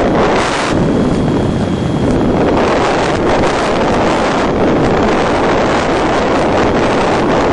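Wind rushing over the onboard microphone of a gliding FPV model plane, a loud steady rush that swells and eases every second or so. The motor is nearly throttled off, so airflow noise is what is heard.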